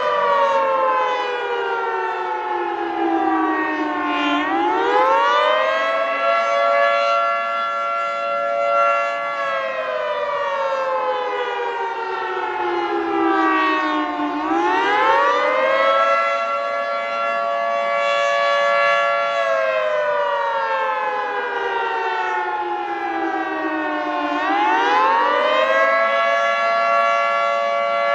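Federal Signal 2T22 dual-tone siren sounding a wail. Its two-tone chord climbs quickly in pitch, holds briefly, then slides slowly down, and the cycle repeats about every ten seconds.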